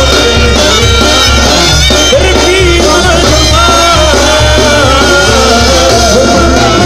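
Mexican banda music: the band plays a melody with a sustained bass line underneath.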